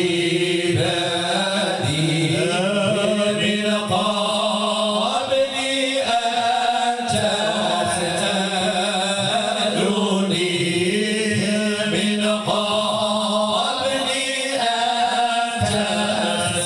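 Male madih group chanting Sufi praise song unaccompanied into handheld microphones, several voices together in long, drawn-out, ornamented lines.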